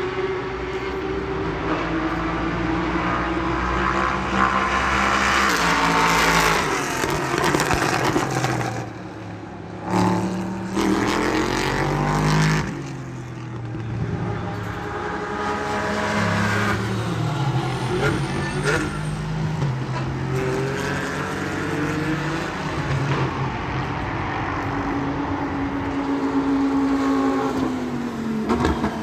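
Race car engines at high revs going by one after another, each engine note dropping in pitch as it passes, with a short lull about a third of the way through.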